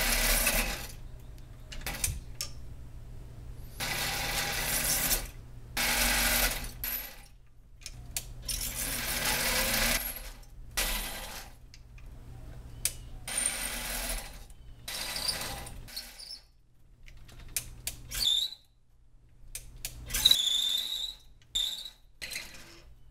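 Benchtop mini metal lathe running with a steady motor hum, its cutting tool taking a series of short cuts into metal stock. Each cut is a burst of scraping, hissing noise lasting about a second. The motor hum stops for a couple of seconds about two-thirds through, and brief high squeals come near the end.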